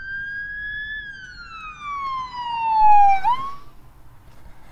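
Siren sound effect: a single wail that climbs slowly for about a second, falls steadily for about two seconds, then flicks up briefly and fades.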